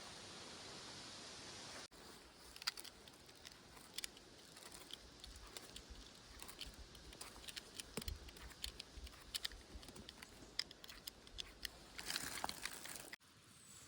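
A steady hiss for about two seconds. Then rustling and crackling in dry forest-floor litter, with many scattered sharp cracks and a denser burst of crackling near the end.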